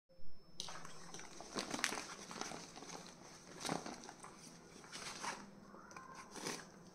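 A brief thump at the start, then cardboard and balloon packaging rustling and crinkling in scattered bursts as it is handled.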